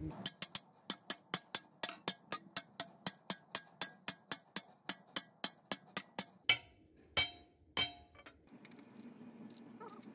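Hand hammer striking the steel ring around a shaft in a vibratory hammer's gearbox housing: quick, even taps, about four or five a second, each with a ringing metallic clink. The tapping stops about six seconds in, followed by a few separate heavier blows.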